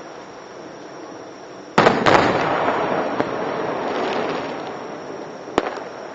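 Aerial fireworks shells bursting: a loud double bang about two seconds in, followed by a long rolling crackle that slowly fades, then another single sharp report near the end.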